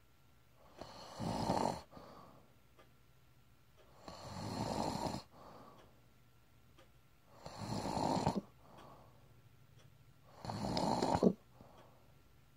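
Sleeper snoring: four snores, each about a second long and coming roughly every three seconds, each followed by a fainter breath.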